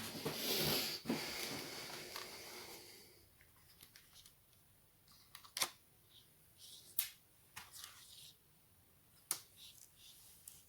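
Small parts being handled while taking apart a Lenovo Legion Y520 laptop: a scraping rustle for about the first three seconds, then scattered sharp clicks and taps, three of them louder than the rest.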